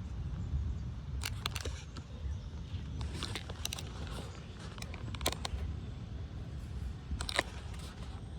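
Strong wind buffeting the microphone, a steady low rumble, with a few short sharp clicks scattered through it.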